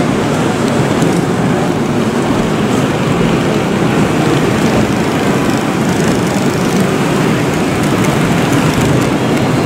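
Steady, loud background din of a busy exhibition hall: an even wash of crowd noise with no single sound standing out.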